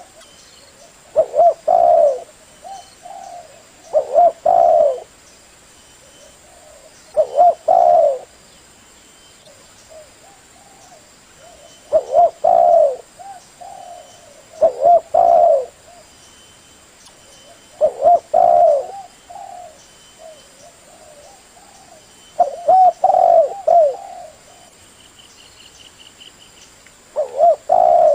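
Male spotted dove (tekukur) cooing: a phrase of a few low, pitched coo notes, repeated every few seconds. This is the call used as a lure to bring other doves to answer.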